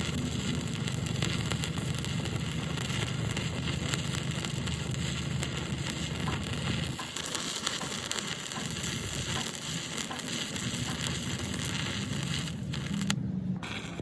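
Electric arc welding crackling steadily, with a low hum under it that drops out about halfway through and comes back near the end.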